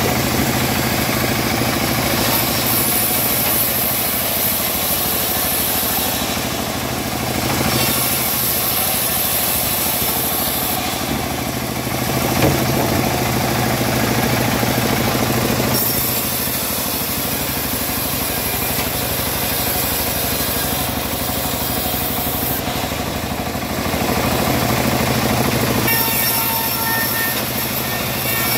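Homemade bandsaw mill running steadily while its blade rips teak planks lengthwise into boards; a high cutting hiss rises and falls several times as planks pass through the blade.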